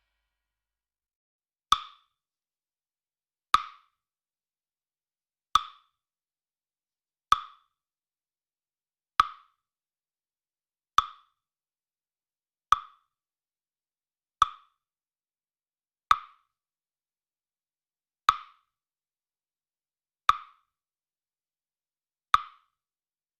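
A short, sharp knock-like sound effect with a quick decay, repeated twelve times about every two seconds, with silence between.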